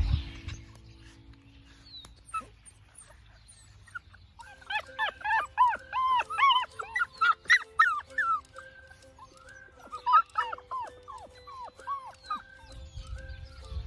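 Labrador retriever puppies whining and yipping: a quick run of short, high, rise-and-fall cries starting about four seconds in, and a second, shorter run about ten seconds in.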